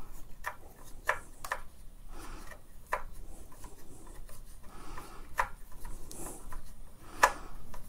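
Phillips screwdriver turning a screw in a Dyson V10's plastic handle housing: quiet scraping of the tip in the screw head with scattered clicks, the loudest near the end. The tip does not quite fit Dyson's screw heads.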